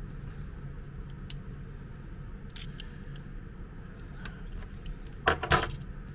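A knife stripping insulation off an extension cord's copper wire: a few small clicks, then a sharp double crackle a little after five seconds in as the blade cuts through. A steady low hum runs underneath.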